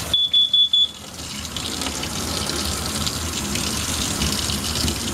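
Trailer carbon monoxide alarm sounding a group of four quick high beeps, the standard CO warning pattern, set off with the propane water heater burning in the closed trailer; the owner is not sure whether the alarm is faulty. Then a faucet runs with a steady hiss until the end.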